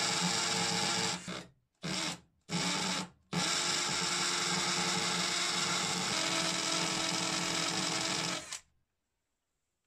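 Cordless drill with a masonry bit boring into a concrete wall. It runs, stops, gives two short bursts, then runs steadily for about five seconds and cuts off near the end.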